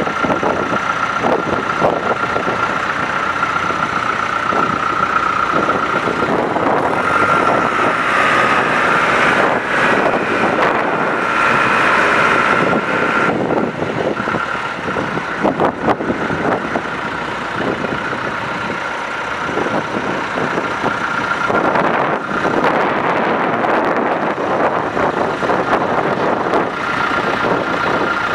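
John Deere 310SJ backhoe loader's diesel engine running, with a steady high-pitched whine over the engine noise that grows stronger for a few seconds in the middle.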